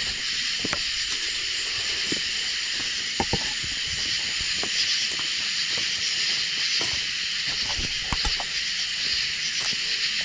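Steady chorus of night insects, an even shrill hiss in several layers, with a few scattered knocks and clicks of handling close by.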